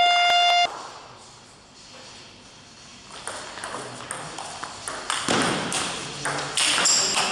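A steady ringing tone cuts off abruptly under a second in. From about three seconds in, a table tennis rally follows: the ball clicks sharply off bats and table about twice a second, growing louder toward the end.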